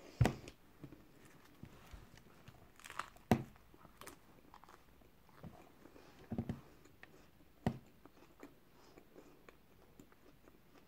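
A person biting into and chewing a small meat-filled bread bite, close to the microphone, with a few sharp clicks or knocks; the loudest come just after the start and about three seconds in.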